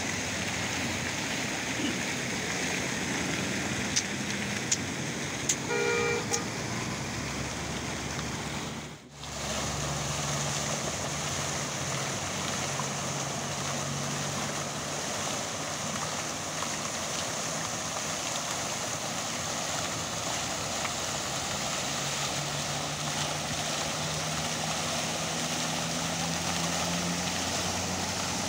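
Fountain jets splashing into a basin, a steady rush of falling water, with road traffic in the background and a brief car horn toot about six seconds in. The sound breaks off for a moment about nine seconds in.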